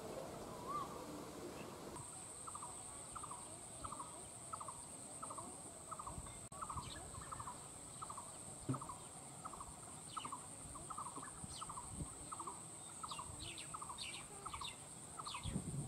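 A bird repeats a short call about twice a second, under a steady high-pitched buzz that starts about two seconds in. A few higher chirps come near the end.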